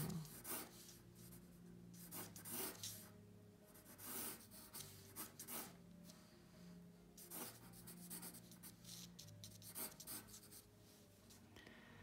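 Wooden pencil sketching on drawing paper: faint, short strokes at irregular intervals as long lines are drawn.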